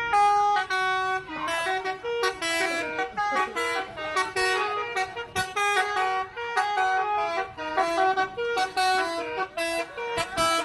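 Bus telolet horn, a set of air-blown horn trumpets, playing a tune as a quick run of short stepped notes with bursts of air hiss between phrases.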